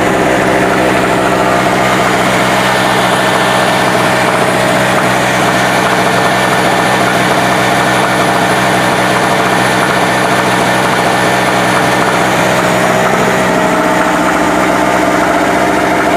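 Small Harbor Freight portable generator running steadily, its engine under the light load of an electric fan plugged into it.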